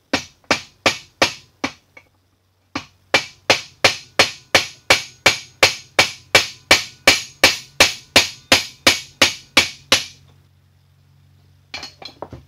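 Hammer blows ringing on a steel spanner to break loose a tight threaded part of a 1940s Sheldon lathe compound: about six quick strikes, a short pause, then a steady run of about twenty strikes at roughly three a second. A few light metal clinks near the end.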